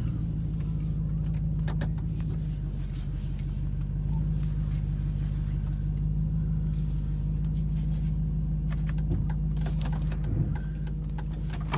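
A vehicle engine running steadily at constant speed, with a few light knocks over it.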